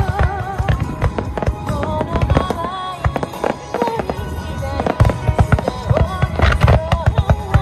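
Fireworks going off in quick succession, a dense run of bangs and crackles that gets thicker about five seconds in, over a pop song with a singer.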